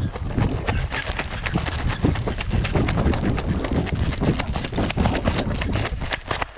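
A person running on dirt or gravel: quick, uneven footfalls with sharp clicks and a heavy low rumble.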